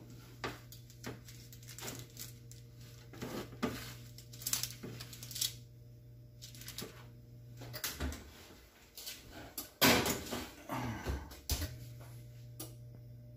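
Metal baking sheet lifted off a glass-top electric range and put back into the oven: scattered scrapes, clanks and knocks of the pan and oven, with the loudest knocks about ten seconds in.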